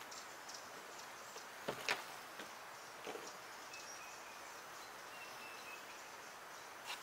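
Outdoor ambience of faint bird chirps and a thin whistled bird note about halfway through, over a steady background hiss. A few short knocks break it: two close together about two seconds in, the loudest, and another just before the end.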